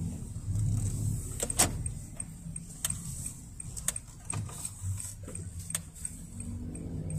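Inside the cabin of a Honda N-BOX driving slowly: the low hum of its small three-cylinder kei-car engine and road rumble, with a few sharp clicks scattered through.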